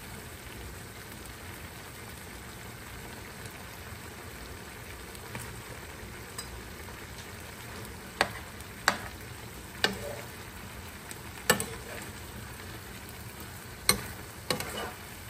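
Pork and vegetables sizzling steadily in a frying pan. From about eight seconds in, a metal ladle stirs them, clinking sharply against the pan about six times.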